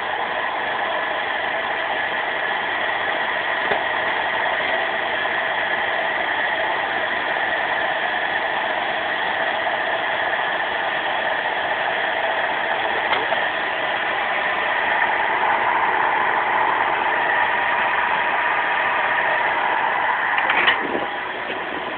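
Hydraulic swaging press running steadily while its dies press a ferrule onto a steel wire rope loop with a thimble. The hum grows a little louder partway through, and a few sharp knocks come near the end as the rope is handled.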